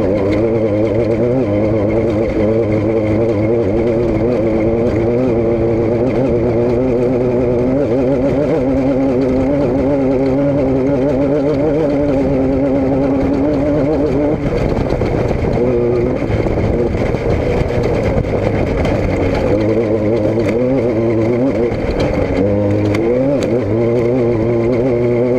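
An engine running loudly and continuously, its pitch wavering up and down, with a short rise in revs near the end.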